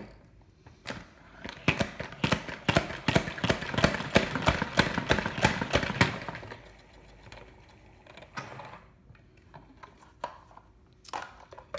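Pump-style salad spinner pumped to spin wet shredded cabbage dry: a fast rattling clatter of the ratchet and spinning basket for about five seconds, thinning out as the basket coasts to a stop. A short clatter near the end as the lid is lifted off.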